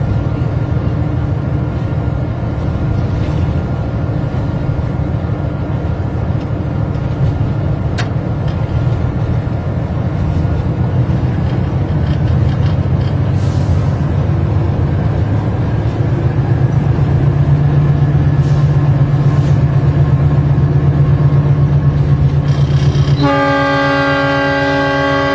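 Train running along the track with a steady rumble, heard from the driver's cab. Near the end the train horn sounds a long, held chord of several tones.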